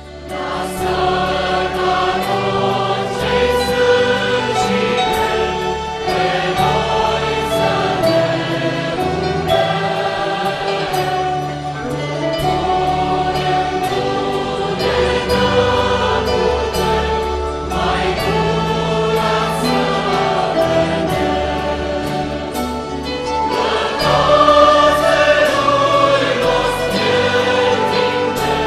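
Large mixed church choir singing a hymn together, with a small accompanying ensemble of violins and other instruments; the full choir comes in right at the start.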